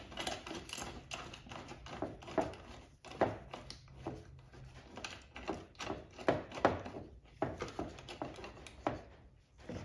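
Seat-belt webbing and metal belt hardware being handled and fitted by hand: irregular rustles with light clicks and knocks, as a bolt is being started into the seat mount.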